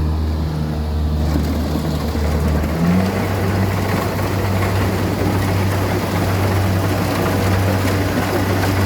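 Kubota DC-70 combine harvester's diesel engine running steadily under a broad mechanical rush, its low hum stepping up in pitch about three seconds in as engine speed rises.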